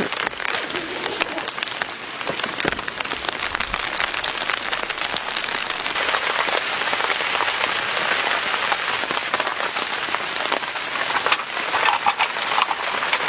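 Steady rain pattering on a tent, an even hiss throughout. A few light knocks and clicks come near the end.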